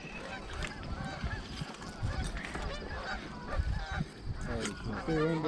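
A flock of geese honking and cackling, many short calls overlapping, with a louder, longer honk near the end.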